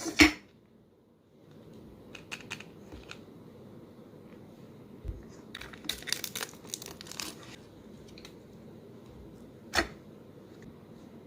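Small plastic toy wrappers being peeled and crinkled by hand in short bursts of crackling, with a sharp knock just after the start and another near the end.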